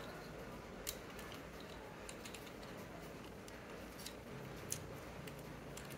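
Faint, scattered plastic clicks of a Transformers Legacy Voyager Springer action figure being handled and folded into a new shape. The two sharpest clicks come about a second in and near five seconds, with lighter ones in between.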